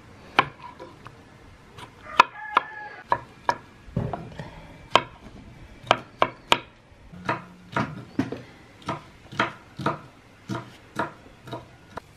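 Kitchen knife chopping tomatoes and green pepper on a wooden cutting board: a run of sharp knife strikes on the wood, irregular, about two a second.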